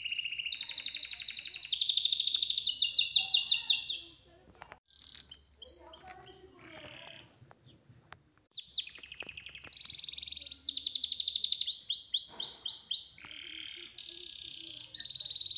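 A small songbird singing loudly, with long, steady, high whistled notes and fast trills. The song breaks off for about four seconds in the middle, then resumes.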